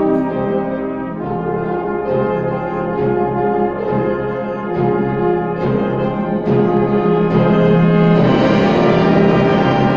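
Wind band playing a brass-led passage, with chords changing about once a second; the band swells louder about eight seconds in.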